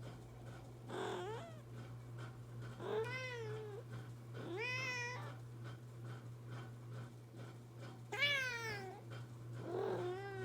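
Domestic cat meowing five times, each meow rising then falling in pitch, over a steady low hum.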